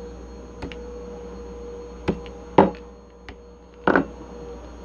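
A wooden dowel and block knocking on a tabletop: a few scattered knocks, the loudest about two and a half seconds in and a quick double knock near four seconds, over a steady background hum.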